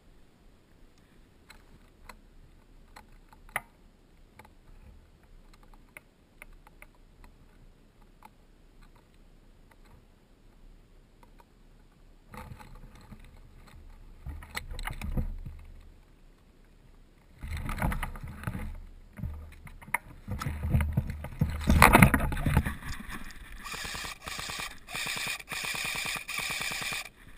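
Rustling and crunching of a person moving through forest undergrowth, heard from a helmet camera: quiet scattered snaps at first, then louder brushing and footsteps from about halfway, with a steady tread of about two steps a second near the end.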